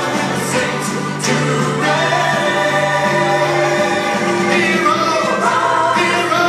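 Gospel music: a choir singing an Easter song with held notes.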